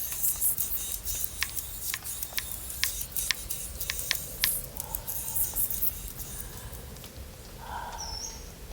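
A quick series of sharp clicks or clinks over the first few seconds, then fainter short chirping calls.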